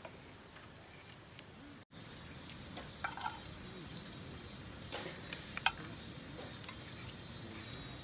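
Quiet outdoor background, then after a brief dropout about two seconds in, a few light, sharp clinks of a metal spoon against a stainless steel soup bowl.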